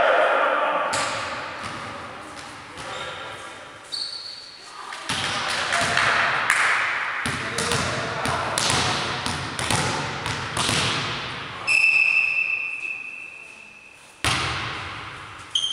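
Volleyball play in an echoing sports hall: players' voices, ball bounces and knocks. About twelve seconds in, a referee's whistle sounds one long, steady blast to signal the serve. About two seconds later comes the sharp smack of an overhand serve striking the ball.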